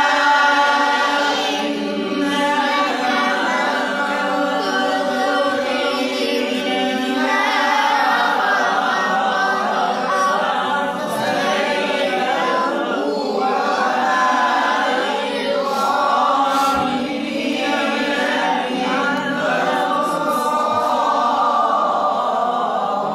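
A man reciting the Quran in melodic tajwid style, drawing out long melismatic phrases with wavering, ornamented held notes and only short breaths between them.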